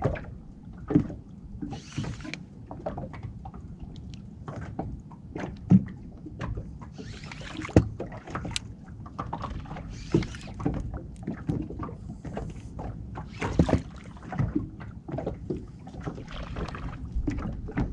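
Water slapping and splashing against a small boat's hull, with frequent irregular knocks.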